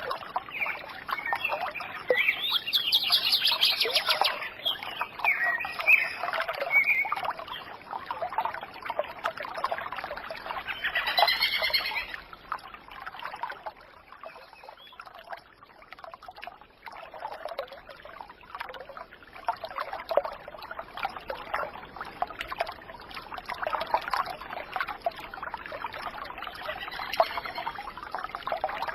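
Many birds chirping and singing in quick, overlapping calls, over a trickle of running water. The birdsong thins out for a few seconds around the middle, then picks up again.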